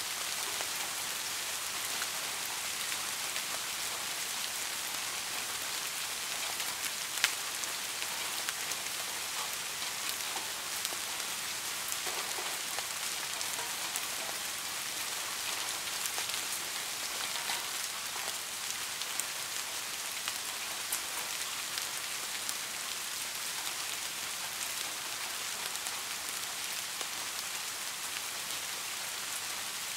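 Steady rain: an even hiss with scattered drop ticks, one a little louder about seven seconds in.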